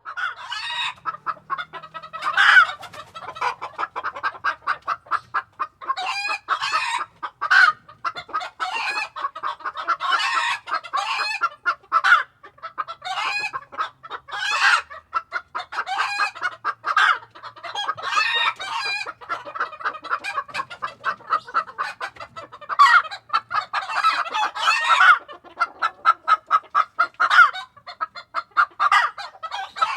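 A flock of chickens in a coop clucking and calling busily, many birds at once, with quick clucks and louder squawks overlapping throughout.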